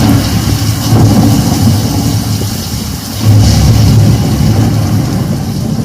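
Loud, bass-heavy cinematic rumble from a Dolby demo trailer's sound effects, played through a 2.1-channel soundbar and wireless subwoofer, swelling about a second in and again around three seconds in.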